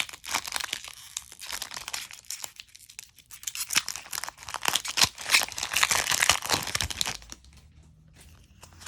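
Foil wrapper of a Pokémon Battle Styles booster pack being torn open and crinkled by hand, a dense crackling that goes quiet about seven seconds in.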